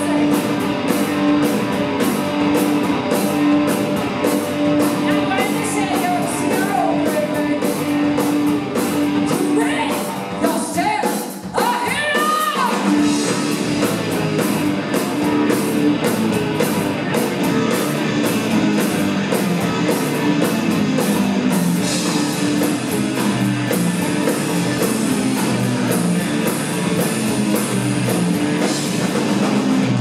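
Live rock band playing: electric guitars, bass and drum kit, with singing. About eleven seconds in the band briefly thins out and a rising slide is heard before the full band comes back.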